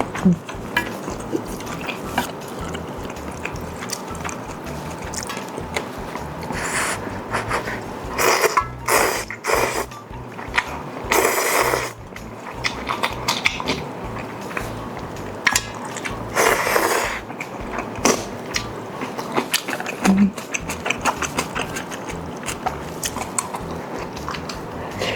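Close-miked eating of ramen and grilled chicken: steady clicky chewing, broken four times by noisy slurps about a second long.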